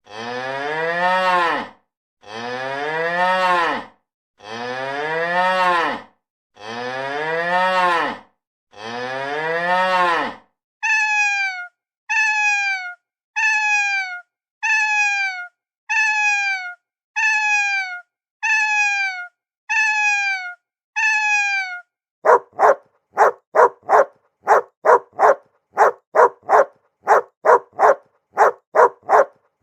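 A cow mooing five times, each long moo rising and then falling in pitch; then a cat meowing nine times in short, falling meows; then a dog barking in a quick, even run of about two to three barks a second.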